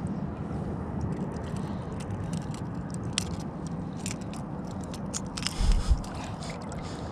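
Scattered small clicks and scrapes of a hook being worked out of a hand-held trout's mouth, with a couple of low thumps about five and a half seconds in, over a steady background hiss.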